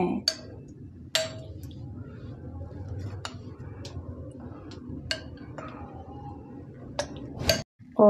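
A spoon clinking lightly against a glass mixing bowl of thick gravy, a handful of scattered sharp clicks over a low steady hum.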